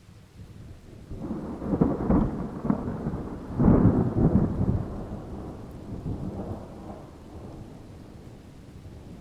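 A peal of thunder: a rumble builds, cracks loudest about two seconds in and again about four seconds in, then rolls away and fades slowly.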